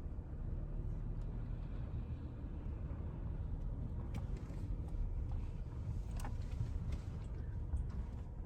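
Vehicle driving on a dirt road: a steady low rumble with a few faint clicks and rattles.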